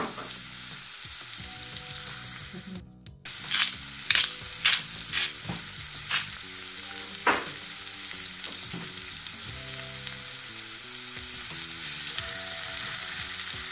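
Chopped red onion sizzling in hot oil in a nonstick frying pan, a steady hiss. It cuts out briefly about three seconds in, then a run of sharp crackles follows over the next few seconds. A silicone spatula stirs the onion near the end.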